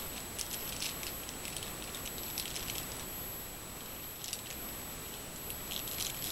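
Thin plastic packaging bag crinkling in short clusters as it is handled and opened, over a steady high-pitched whine.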